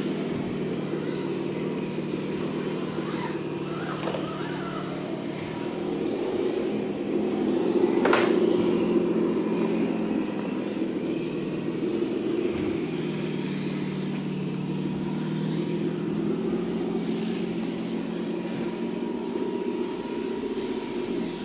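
Electric motors and gear drives of 1:10 scale RC crawler trucks running steadily under load as they crawl over rock. There is one sharp knock about eight seconds in.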